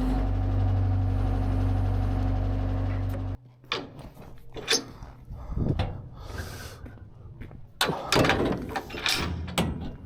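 Skid steer engine running steadily, then shut off abruptly about a third of the way in; after it stops, scattered clicks and knocks follow.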